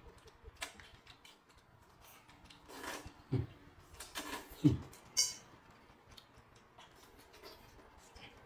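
Eating sounds: irregular crisp crunching and chewing as pickled hand-peeled bamboo shoots are bitten, with a few louder short mouth sounds about three to five seconds in.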